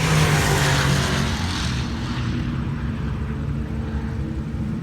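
A C5 Corvette's LS1 V8 running at a steady engine note while driving, with no belt squeal now that the belt tensioner has been replaced. A rush of wind or road noise is strongest in the first two seconds, then fades.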